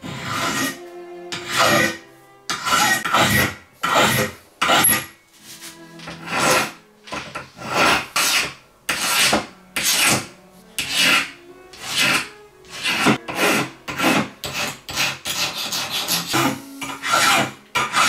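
A hand file rasping across a rusty metal pocket-knife part clamped in a bench vise, taking off surface rust, in repeated strokes about one to two a second.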